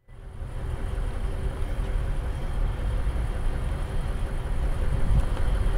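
Steady outdoor background rumble of engine and traffic noise with a faint hum, starting suddenly and growing a little louder.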